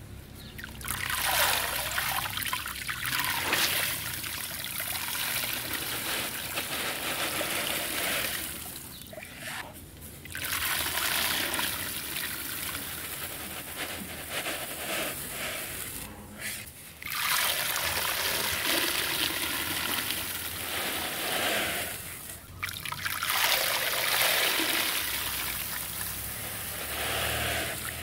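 Dry, grainy red dirt poured from a bowl into a tub of water, a steady rush of grains splashing into the water. It comes in about four pours with short breaks between them.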